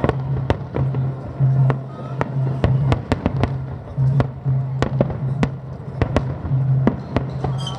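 Fireworks going off in quick irregular succession, sharp bangs and crackles about three a second.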